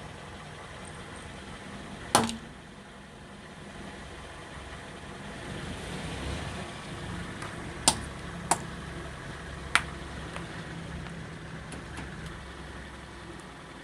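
A car engine running slowly, with sharp cracks as plastic objects break under its tyres: one loud crack about two seconds in, then three more between eight and ten seconds in, and a few faint clicks.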